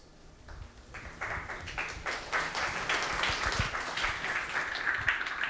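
Audience applause, starting up about a second in and then holding steady as a dense patter of many hands clapping.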